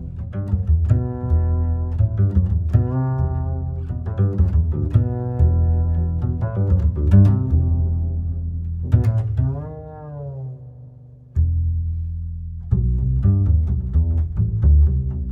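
Background instrumental music: plucked and bowed low strings playing over a steady bass line, with a brief pause partway through.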